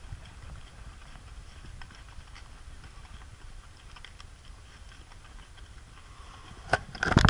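Horses' hooves clopping irregularly on a rocky, sandy trail, heard from horseback, over a low rumble. Two loud knocks near the end.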